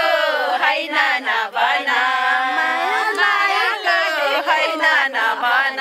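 Several women singing together without instruments, their voices overlapping.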